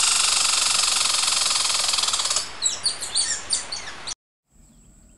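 An added intro sound clip: a loud, dense hiss-like buzz for about two and a half seconds, then a string of quick falling chirps. It cuts off abruptly about four seconds in, leaving faint outdoor background.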